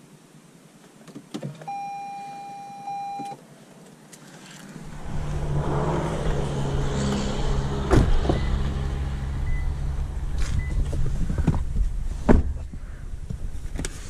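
A car's steady electronic beep lasting about a second and a half, then a low rumble with a few sharp knocks and clicks as the car gets under way.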